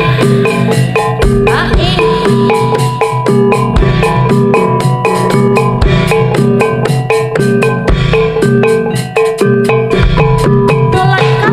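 Jaranan accompaniment music, played loud over a PA sound system: drums and mallet-struck gamelan metallophones playing a fast, steady rhythm, with no singing.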